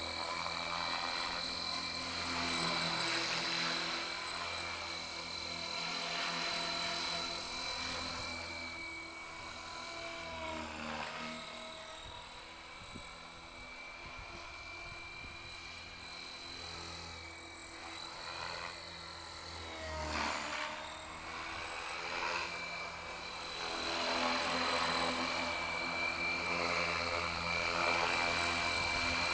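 Electric RC helicopter (3DX 500) in flight: a steady high motor-and-gear whine with rotor noise. It grows fainter through the middle and louder again near the end, and its pitch dips briefly twice.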